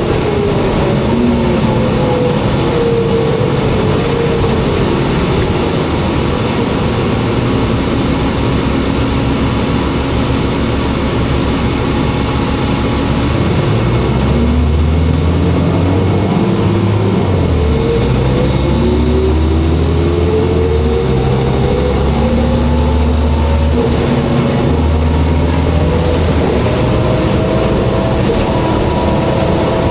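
Cummins ISL diesel and Voith D864.3E automatic transmission of a New Flyer D40LF bus, heard from inside the cabin. A whine falls in pitch over the first few seconds as the bus slows. About halfway through the engine pulls hard with a deep drone while the whine rises, drops back at a gear change and rises again near the end.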